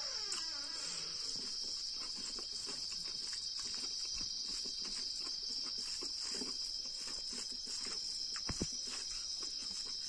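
Crickets chirring steadily at a high pitch, with soft clicks and smacks of eating rice and fish by hand and chewing close to the microphone. One low thump about a second and a half before the end.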